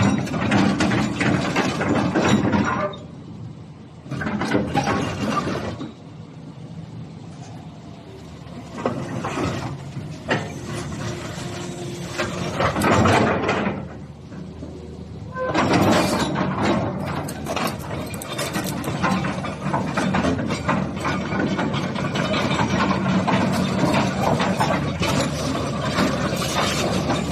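Hitachi ZX200-6 excavator running: its diesel engine and hydraulics working under load with mechanical clatter, dropping back to quieter running three times before loading up again and staying loud through the second half.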